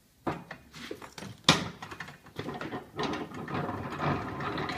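Cast-iron newspaper mat caster being locked shut: clanks and knocks from its heavy iron locking handle and lid. The loudest is a sharp metal knock about a second and a half in, followed by a denser run of metal rattling.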